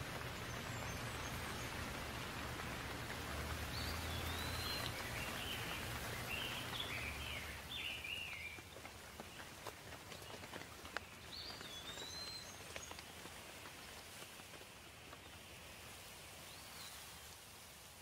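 Steady rain with a songbird chirping in short phrases, several in a row a few seconds in, more around the middle and one near the end. The rain fades down right at the end.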